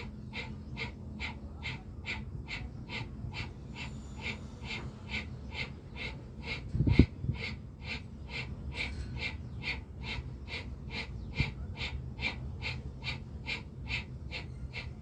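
Bhastrika pranayama: a person breathing forcefully and rapidly in and out through the nose in an even rhythm of about two and a half strokes a second. A single low thump about seven seconds in.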